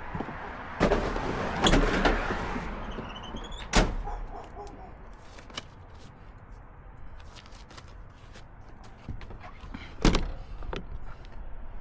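A few heavy thuds and clunks: a cluster about a second in, a sharp knock near four seconds and another near ten seconds.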